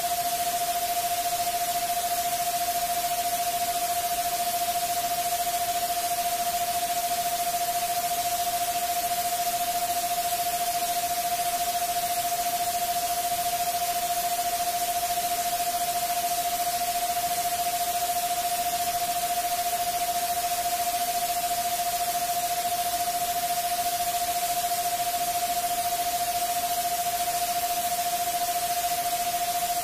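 Synthesized 'subliminal frequency' track: a single steady mid-pitched tone over an unbroken hiss of white noise.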